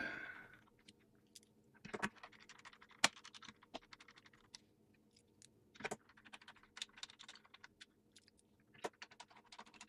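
Sparse light clicks and taps from hands handling a mini PC and pressing its bottom cover into place, with one sharper click about three seconds in.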